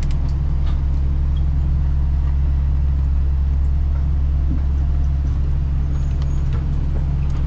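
Yui Rail monorail train running along its track, heard from inside the front car: a steady, loud low rumble and hum.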